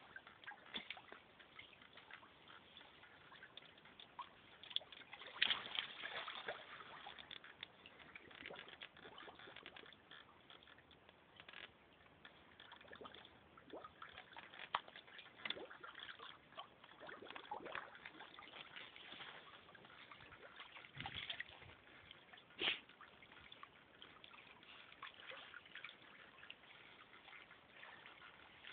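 Faint pool water sloshing and trickling, stirred by a Vizsla diving and swimming, with a few sharper splashes, the loudest about five seconds in and again near twenty-three seconds.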